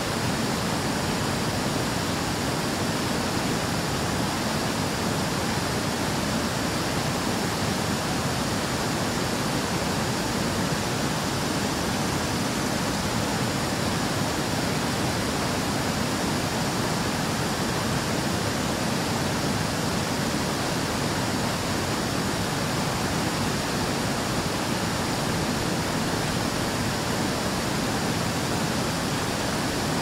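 Small river waterfall pouring over a rock ledge into a pool: a steady, unbroken rush of falling water.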